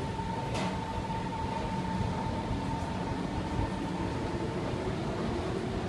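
SMRT metro train heard from inside the carriage as it moves along an underground platform: a continuous low rumble with a steady whine, and a lower motor tone that creeps upward near the end. A single click about half a second in.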